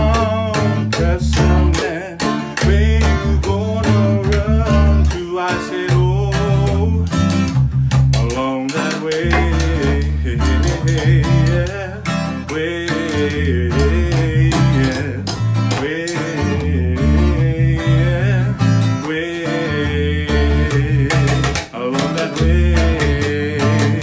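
Acoustic guitar strumming with a low bass line and percussion hits in a steady groove, an instrumental stretch of a reggae-style song.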